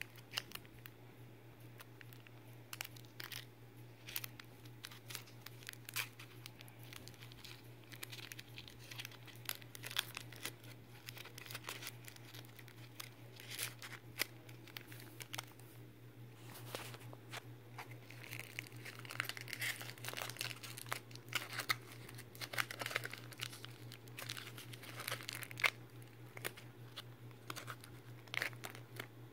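Foil wrapper on a chocolate egg being peeled and crinkled by hand: irregular sharp crackles and small tearing sounds, thickest past the middle, over a steady low hum.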